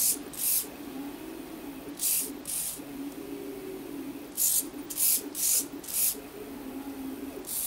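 Small hobby servo of a drawing robot's pen lift whirring in short bursts, about seven times, as it swings the pen arm up and down. A lower motor hum runs underneath.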